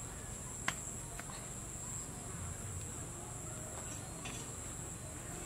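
Insects droning steadily in two high-pitched tones, with one sharp click near the start.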